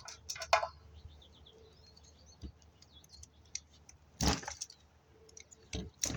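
A few sharp knocks and clatters of tools and scrap parts being handled while wiring is worked out of a dishwasher's base. The loudest knock comes about four seconds in, with faint bird chirps in the background.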